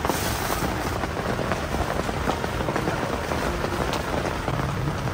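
Steady rain falling, heard from inside a tent, with the odd sharper drop landing now and then.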